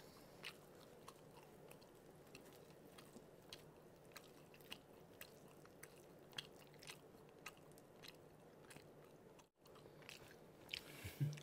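Faint close-up chewing of a big mouthful of mutton biryani mixed with black bean noodles, with many small wet clicks of the mouth.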